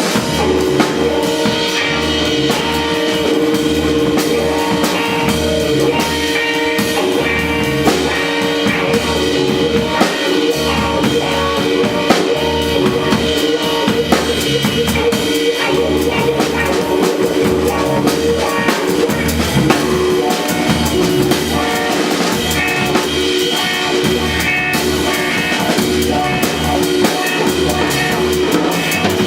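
Jazz trio playing a jazz standard, with the drum kit prominent, rimshots on the snare, and a steady bass line underneath.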